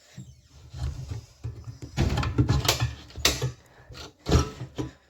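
Rattling handling noise with several sharp knocks or clicks, the loudest about four seconds in.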